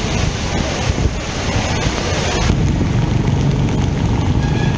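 Outdoor noise of wind buffeting the microphone over flooded streets: a steady low rumble with hiss above it. About two and a half seconds in the noise changes suddenly and the hiss drops away, leaving mostly the rumble.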